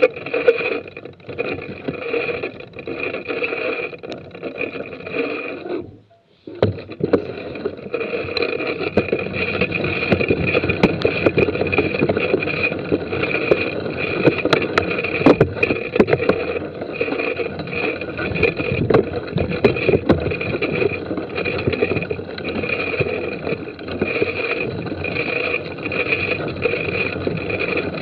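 Mountain bike riding slowly over a muddy forest trail, heard from a camera mounted on the bike or rider: steady rattling and rolling noise with scattered knocks. The sound cuts out for about half a second some six seconds in.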